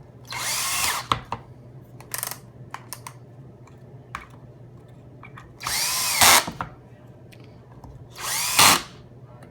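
Power drill driving the star-head screws that close a battery pack's plastic case, in three short runs with a brief blip between. The motor whine rises and falls in pitch within each run.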